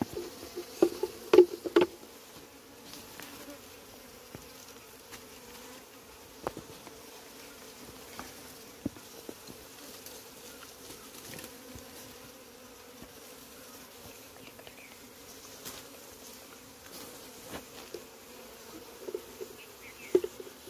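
Honeybees buzzing steadily in numbers around an open, bee-covered comb being handled. The buzzing swells louder for a moment about a second in and again near the end.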